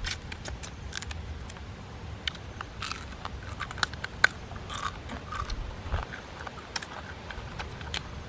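Boiled crab shells cracking and crunching as they are broken apart by hand, bitten and chewed: an irregular string of sharp snaps, the two loudest about four seconds in.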